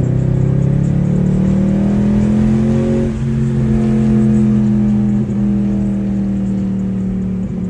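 Mercedes-AMG 6.2-litre V8 running steadily just after an oil change, its pitch creeping up a little over the first couple of seconds and then holding.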